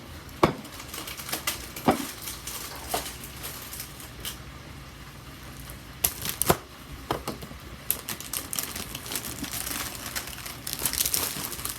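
Irregular clicks and taps from objects being handled, with crinkling of packaging that grows denser near the end.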